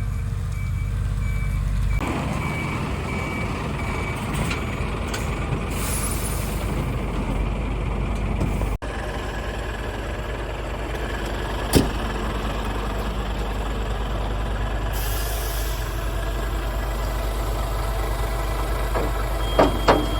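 A heavy vehicle's engine running steadily, with a reversing alarm beeping in regular pulses for the first few seconds.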